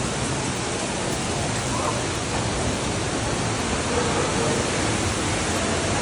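A waterfall pouring: a steady, even rush of falling water.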